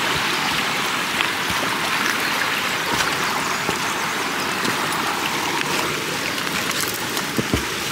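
Mountain stream flowing, a steady rush of water, with a few light taps.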